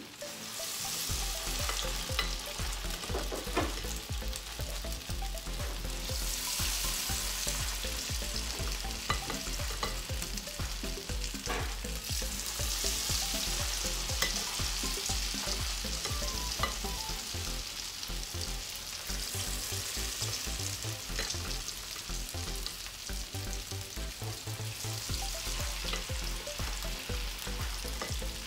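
Hot oil sizzling steadily as spoonfuls of akara bean-fritter batter fry in a frying pan. The sizzle swells louder twice, and there are a few light clinks of a spoon.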